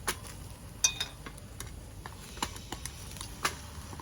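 Cooking in a pan over a campfire: a few sharp taps and clicks of a utensil, roughly a second apart, over faint sizzling.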